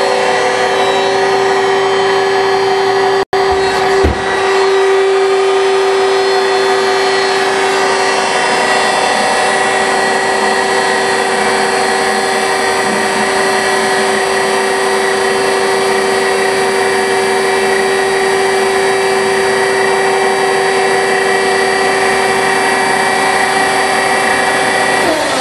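Load King VB-6036 vertical baler's hydraulic power pack and 10 horsepower electric motor running with a steady whine while the platen cycles. The sound cuts out for an instant about three seconds in, with a low thump just after.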